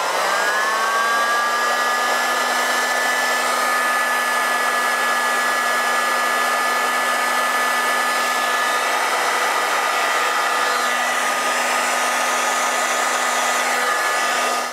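Hot-air heat gun switched on, its fan whine rising as the motor spins up, then blowing steadily with a hiss, and cut off just before the end. It is shrinking heat-shrink tubing over a soldered wire joint.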